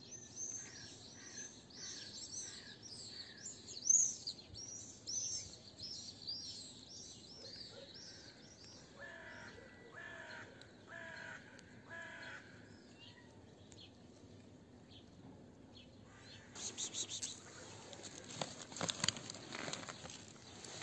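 Many small birds chirping in quick, arcing notes, then a harsher call repeated about four times, like a crow cawing. Near the end the birdsong gives way to louder scuffing and tapping noises.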